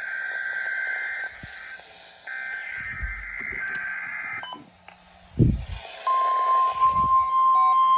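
Emergency Alert System digital header played over broadcast radio: two buzzy bursts of data tones about two seconds each. About six seconds in, the steady NOAA Weather Radio 1050 Hz warning alarm tone starts, and near the end a stepping pattern of higher beeps joins it.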